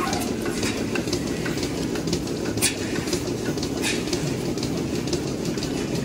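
Milking parlour machinery running: a steady low rumble with busy, irregular clicking, and two short, sharp hisses of air from the milking units, about two and a half and four seconds in.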